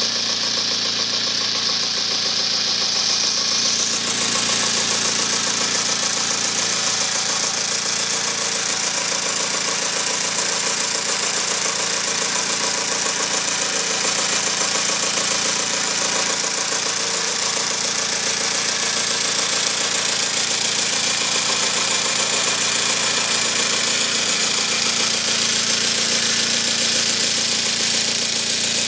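Small twin-cylinder double-acting oscillating model steam engine running fast and steadily on compressed air, a rapid mechanical clatter with air hissing from its exhausts. The hiss grows stronger and brighter about four seconds in.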